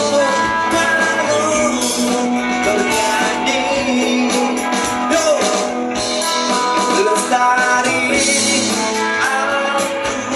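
Rock band music with guitar and a singing voice.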